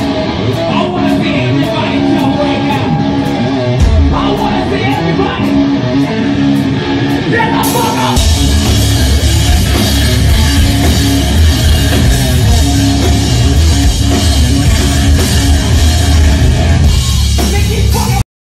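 Live rock band playing loud: drum kit and electric guitar, with regular cymbal hits over a lighter groove that gives way to the full band coming in heavy about halfway through. It cuts off suddenly just before the end.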